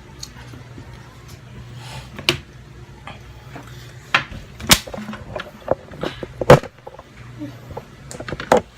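Scattered sharp knocks and clicks, about half a dozen at irregular intervals and the loudest about six and a half seconds in, over a steady low hum.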